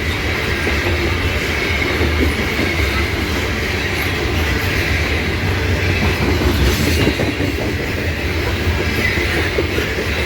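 Loaded coal hopper cars of a long freight train rolling past at close range: a steady heavy rumble of steel wheels on rail with clickety-clack and a faint high wheel squeal.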